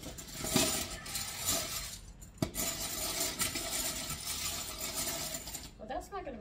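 Hand-cranked rotary egg beater whirring, its metal beaters clattering against a ceramic mixing bowl. There is a short pause about two seconds in that ends with a sharp knock, then more cranking until it stops near the end.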